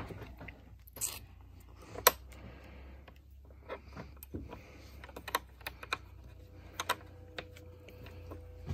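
Scattered small clicks and taps of metal hardware being handled: a screw being set onto an impact driver's bit and a metal door strike plate held against the jamb. The loudest click comes about two seconds in.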